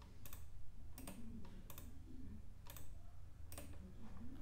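Computer mouse buttons clicking faintly, about six clicks spaced roughly a second apart, over a steady low hum.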